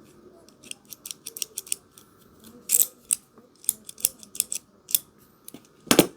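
Small Knipex Cobra XS water pump pliers being worked open and shut by hand: the metal jaws and pivot click and snap in quick, irregular clusters, with one louder snap near the end.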